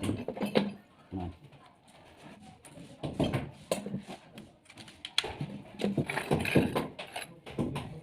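Light, irregular knocks and clatter from PPR plastic pipe fittings being handled and fitted together.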